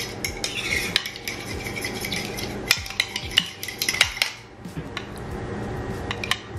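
Metal spoon stirring a thick yogurt dressing in a ceramic bowl, clinking and scraping against the sides in quick, irregular taps, with a short pause about four and a half seconds in.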